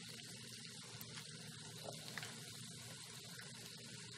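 Faint steady sizzle of halved fingerling potatoes crisping cut side down in oil in a pan, with a couple of soft ticks about two seconds in from a metal spoon scooping avocado out of its skin.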